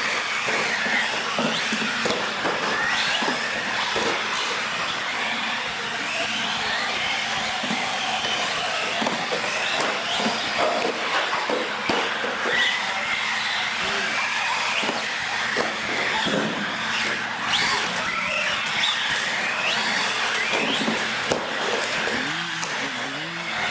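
Several radio-controlled UTVs racing on a concrete floor. Their motors whine high, rising and falling as the throttle changes, over tyre noise and frequent short clicks and knocks.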